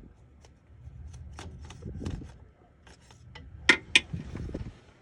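Hand tools and engine parts being handled and worked at: rustling and scraping with scattered sharp clicks, the two loudest close together about three and a half seconds in.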